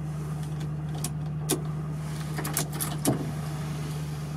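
Volkswagen Transporter T3's engine idling steadily, heard from inside the cab, with a few light clicks and knocks about one, one and a half and three seconds in.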